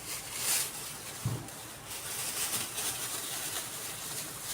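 Disposable gloves rustling and crinkling as they are pulled onto the hands, with a dull thump about a second in.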